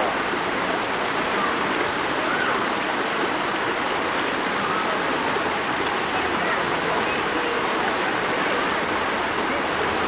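Shallow stream water rushing steadily over a low rocky step, a continuous splashing rush.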